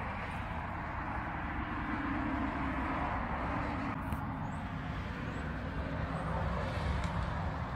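Steady rush of road traffic passing on the road, swelling a little near the end, with a faint click about halfway through.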